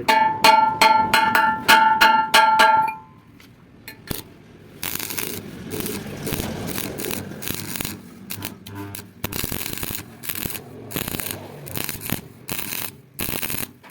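Hammer striking a steel bar about eight times in quick succession, each blow ringing with a clear metallic tone. After a short pause come irregular rough scraping strokes of metal on metal.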